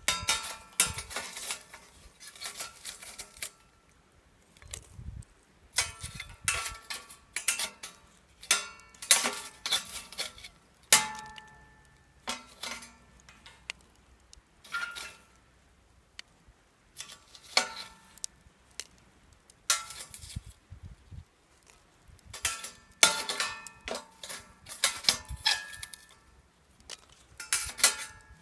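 Metal camp cookware and gear being handled, clinking and clanking in irregular bouts with short ringing tones.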